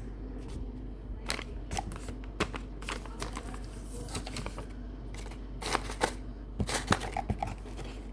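Small items being handled and packed into a box by hand: irregular taps, clicks and rustles, busiest about six to seven and a half seconds in.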